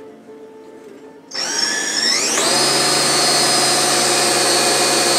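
Electric drill starting up about a second in, its whine rising as the motor spins up, then running steady at full speed.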